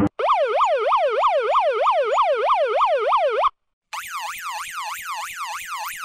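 Police car siren sound effect sweeping quickly up and down, about three or four sweeps a second. It cuts off about three and a half seconds in, then after a short gap returns higher-pitched and quieter, sped up like a miniature version.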